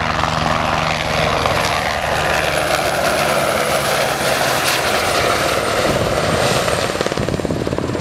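Helibras AS350B3 Ecureuil helicopter flying past close: rapid rotor chop with a high turbine whine that slides slightly down in pitch as it goes by.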